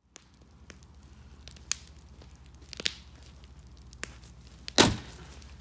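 A few scattered light knocks and cracks, then one loud sharp bang a little before the end, over a low steady hum.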